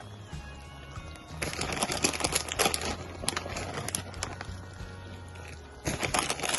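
A cooking utensil clicking and scraping irregularly against a pan of spaghetti in cream sauce as grated Parmesan is worked in, with background music underneath.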